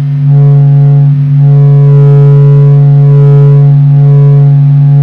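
NASA's sonified recording of the Sun: a loud, steady low hum with a chord of held tones above it and fainter tones sliding up and down.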